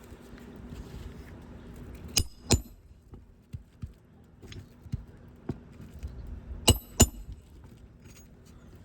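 Hammer striking roofing nails: two pairs of sharp, ringing metal-on-metal blows, with lighter taps between them.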